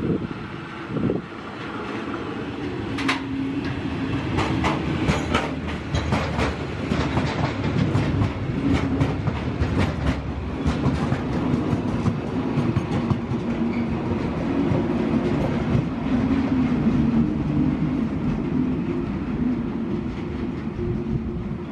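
DR class V100 diesel locomotive pushing a train of hopper wagons past. Its engine runs steadily and grows louder as the locomotive goes by, then eases near the end. From about three seconds in, for several seconds, the wagon wheels clack sharply over the rail joints.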